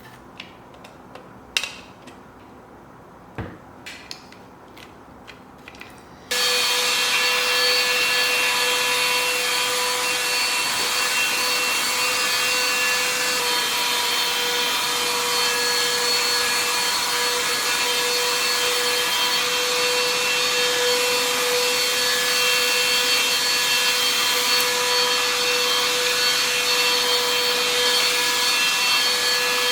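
A few sharp clicks, then about six seconds in an XREXS cordless handheld vacuum cleaner switches on suddenly and runs steadily: airflow noise with a steady whine.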